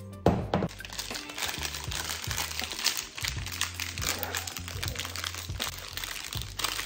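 Plastic wrapping on a block of mozzarella crinkling as it is handled and opened, over background music.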